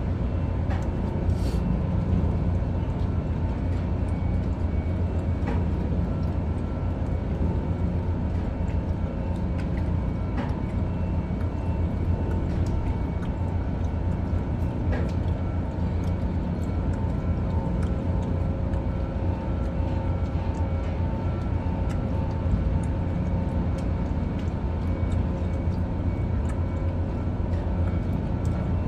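Steady low drone of a ship's machinery, with a few faint steady whining tones above it and scattered faint ticks.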